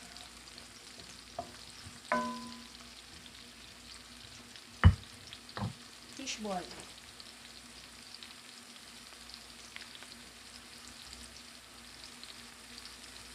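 Onion and garlic sizzling steadily in hot oil in a kawali, with a metal utensil clinking and knocking against the pan now and then: a ringing clink about two seconds in and two sharp knocks around five seconds.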